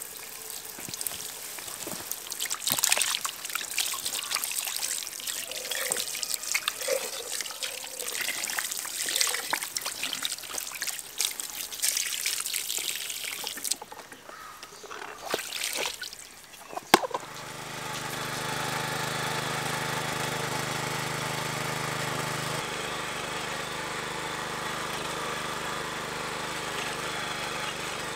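Water poured from above trickles and splashes over a whole raw chicken in an enamel bowl, rinsing it, for about the first sixteen seconds. After a sharp click, the small petrol engine of a garden tiller (motor hoe) runs steadily, its tone shifting slightly a few seconds later.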